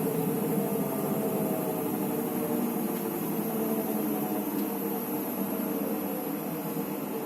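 Electrolux EWT 1377VIW top-loading washing machine's motor and drum spinning with a steady hum and whir, pitch and level slowly sagging. The machine has a fault that keeps it spinning instead of stopping at the end of the cycle.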